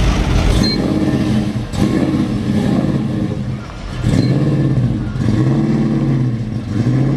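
A car engine running, its pitch swelling up and down gently every second or so.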